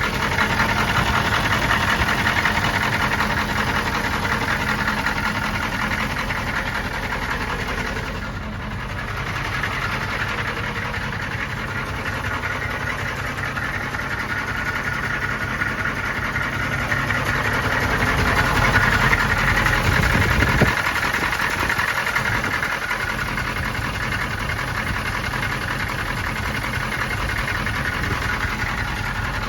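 The 6.5 L naturally aspirated Detroit Diesel V8 of a 1993 M998 HMMWV idling with a steady, rhythmic clatter. The owner takes it for rod knock from a rod bent when the engine hydrolocked after sucking water down the intake. It swells slightly about two-thirds of the way through, with a single sharp tap just after.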